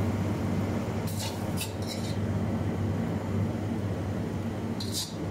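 A metal spatula scraping and tapping against the wok as stir-fried chicken is served out onto a plate: three short scrapes about a second in and another near the end, over a steady low kitchen hum.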